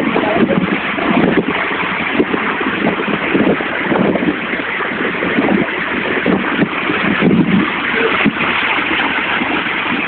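Tall waterfall pouring down onto rocks: a loud, steady rushing of water, with wind buffeting the microphone.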